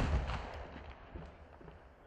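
The echo of a daytime fireworks bang fading away over open ground, with a few faint distant pops about a second in.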